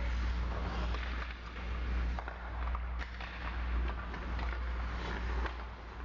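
Indoor ice hockey rink ambience during play: a steady low hum under an even hiss, with a few faint scrapes and clicks of skates and sticks on the ice.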